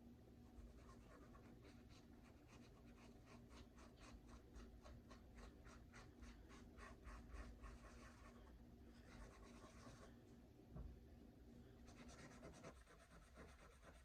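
Faint, rhythmic scrubbing: the abrasive side of a scouring sponge rubbed back and forth over a Glock pistol barrel, about three or four strokes a second. The strokes pause briefly near the middle, then start again near the end.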